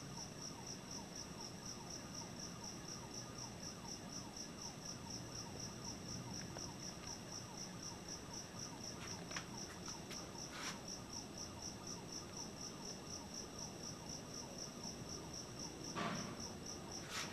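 Faint crickets chirping in a steady, evenly pulsed rhythm, with a couple of soft knocks near the end.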